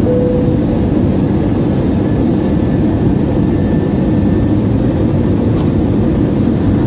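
Steady cabin noise inside an Airbus A320-216 in flight, heard from a seat over the wing: a low rushing drone of airflow and the CFM56 turbofan engines. A brief steady hum sounds in the first second.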